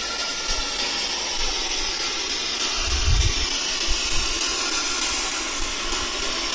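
Steady hiss of broad noise, with a few low thumps about three seconds in and again about a second later.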